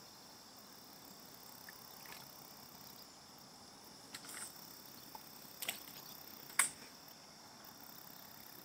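Crickets chirring steadily, with a few short sharp clicks about four, five and a half and six and a half seconds in, the last the loudest.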